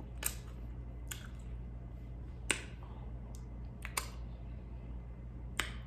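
Close-up eating sounds: about seven sharp, scattered clicks and smacks over a steady low hum.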